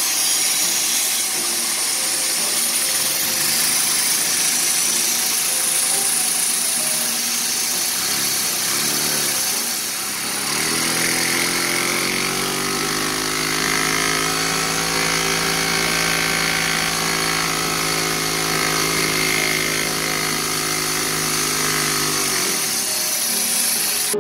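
Vacuum cleaner running, its hose drawing air through a Lego vacuum engine. About eleven seconds in, a humming drone rises in pitch and holds steady, then cuts off near the end.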